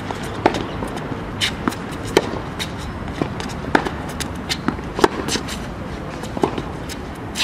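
Tennis rally on a hard court: sharp knocks of rackets striking the ball and the ball bouncing, irregularly spaced, between the scuffs and steps of the player's shoes moving on the court.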